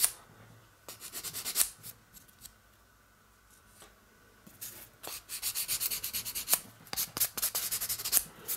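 Sanding file rubbed back and forth over a small painted model part in quick short strokes, smoothing away the stubs left from cutting it off the sprue. A short bout of strokes comes about a second in, then a pause, then a longer run of strokes from about halfway.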